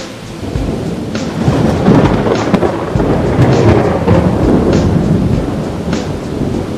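Thunderstorm: steady heavy rain with deep rolling thunder that swells and fades, loudest about two seconds in and again around four to five seconds in.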